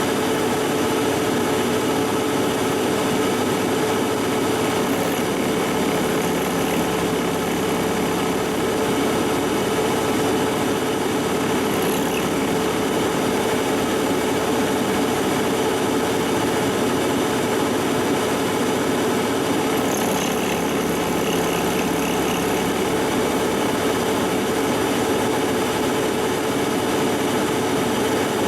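Monarch engine lathe running steadily while a carbide insert turns the bearing surface of a hardened tractor pinion shaft. The cut is hard and interrupted, a job better suited to a cylindrical grinder.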